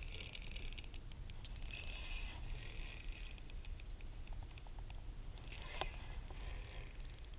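A spinning reel working in short bursts of rapid clicking and whirring as a hooked fish is played on a light spinning rod, over a low steady rumble.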